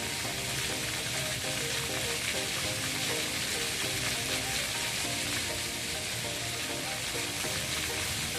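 Water fountain spray hissing steadily, with music playing beneath it.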